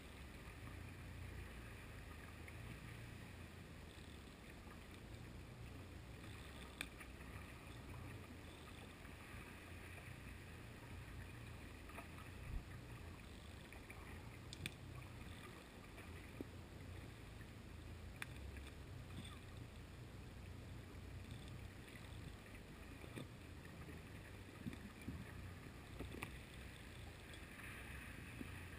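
Faint underwater sound heard through a GoPro's waterproof housing: a steady low rumble with a few sharp clicks and taps scattered through.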